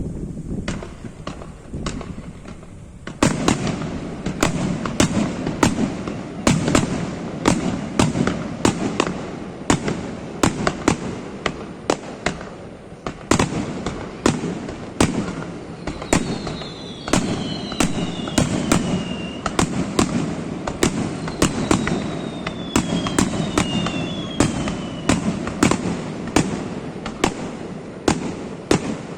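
Fireworks bursting in a rapid barrage of sharp bangs, several a second, growing denser about three seconds in. Around the middle there are two sets of whistles sliding down in pitch.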